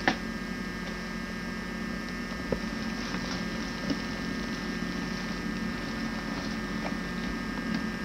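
Steady electrical hum and hiss of an old camcorder recording, with one sharp click right at the start and a couple of faint ticks later.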